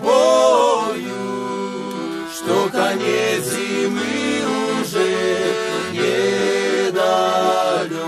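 Male voices singing a slow song together over accordion accompaniment, the accordion holding steady chords under the sung lines.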